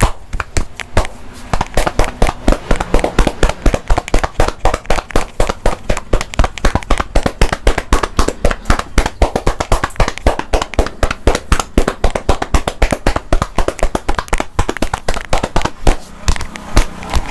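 Percussive hand massage: a barber's hands slapping and chopping on the body in quick succession, several sharp smacks a second in a fast, fairly even rhythm.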